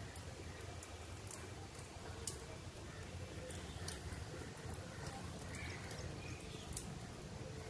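Monsoon rain falling: scattered drops tick close by over a steady low rumble.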